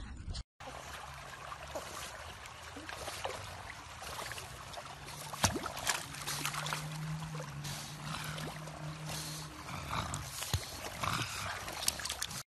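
Swimming-pool water splashing and sloshing as two pugs paddle through it, with a few sharp splashes. A low steady hum runs for a few seconds midway.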